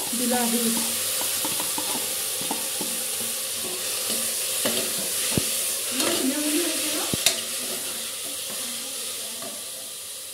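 Onions and garlic paste sizzling as they fry in ghee and oil in a pan, with a spoon stirring and scraping through them and a couple of sharp taps on the pan. The sizzle eases off over the last few seconds.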